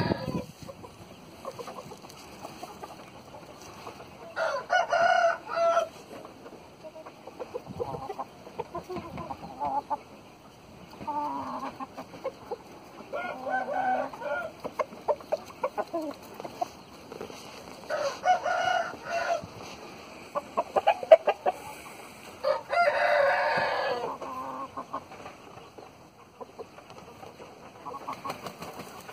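Roosters crowing several times, each crow one to two seconds long, with shorter clucking calls in between.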